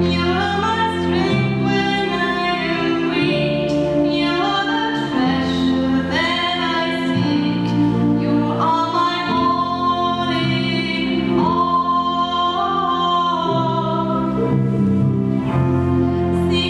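A woman singing a slow worship song solo, her voice gliding between long held notes over sustained keyboard chords that change every few seconds.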